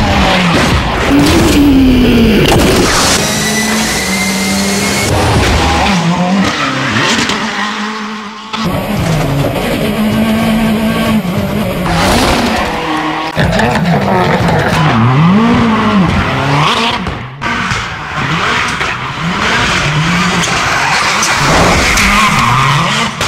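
Ken Block's Ford Fiesta rallycross car, a turbocharged four-cylinder, revving hard and dropping back again and again as it is driven flat out, with tyres squealing and skidding through drifts. The sound dips briefly about eight seconds in, then the revving and tyre squeal carry on.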